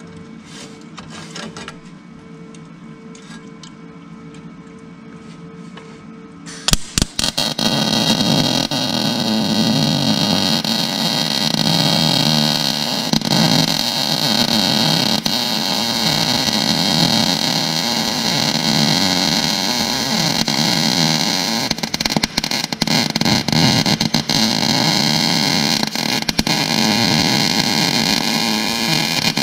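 Electric arc welding on the paver's steel: after a few quick arc strikes about seven seconds in, a loud steady crackling and hissing that cuts off abruptly at the end.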